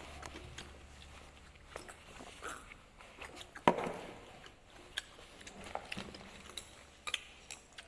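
Eating sounds: chewing and mouth noises as kimbap is eaten, with scattered light clicks of tableware being handled and one sharp click a little before halfway.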